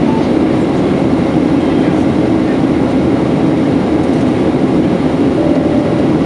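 Steady cabin noise of a Boeing 737-700 climbing after takeoff, heard from a window seat over the wing: the CFM56-7B turbofan engines running at climb power with a rush of air past the fuselage, a dense, even rumble with hiss above it.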